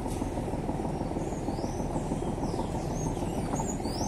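Steady low rumbling noise with a series of short, high-pitched chirps, like small birds calling, that grow more frequent toward the end.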